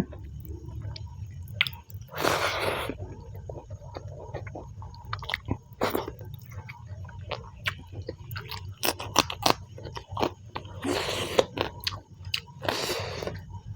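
Close-up chewing of a mouthful of rice and chicken with saag: soft, wet mouth clicks and smacks. Three brief louder hissing noises come about two, eleven and thirteen seconds in.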